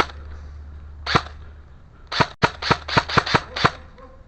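Airsoft gun firing: a single shot, another about a second later, then a rapid string of about eight shots in a second and a half.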